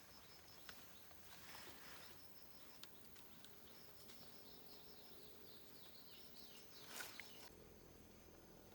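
Faint outdoor ambience with a bird calling: a quick run of evenly spaced high chirps that drops slightly in pitch toward the end. A short sharp rustle or knock comes near the end.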